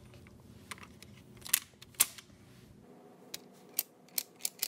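Plastic flip-down character tiles of a Guess Who? game board being knocked down one after another: a string of about eight sharp clicks, the two loudest about a second and a half and two seconds in, and several more quickly near the end.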